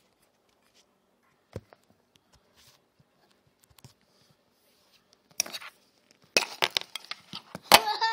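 Handling noise: scattered faint clicks and knocks, then from about five seconds in a dense run of crackling and rubbing, loudest near the end.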